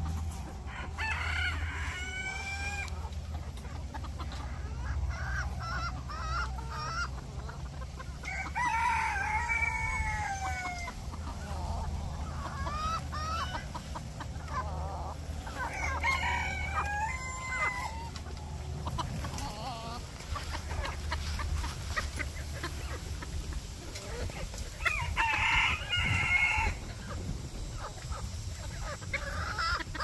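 Rooster crowing about four times, each crow two to three seconds long, with short clucks between the crows.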